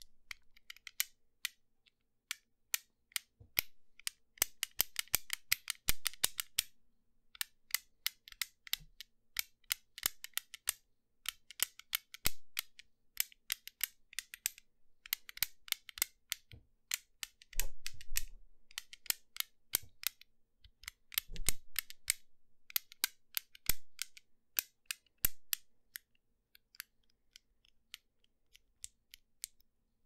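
Fidget cube's small switch being flicked close to the microphone: runs of sharp clicks, some fast and some spaced out. Twice after the middle, a duller knock from handling the cube against the microphone.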